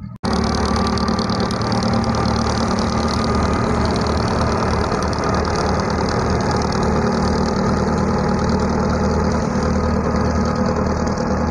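A river ferry launch's engine running steadily, a low, even drone with water and wind noise over it.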